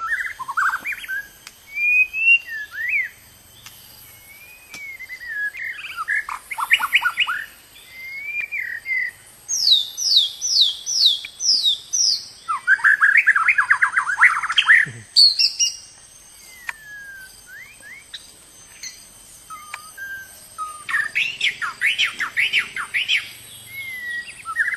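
White-rumped shama (murai batu) singing a varied song: clear slurred whistles alternating with fast runs of repeated sharp notes and trills, phrase after phrase with short pauses between.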